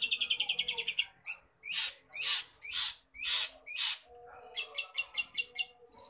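Caged long-tailed shrike (cendet) singing a varied song full of mimicry: a rapid chattering run of notes, then five harsh, noisy notes about half a second apart, then another quick run of notes near the end.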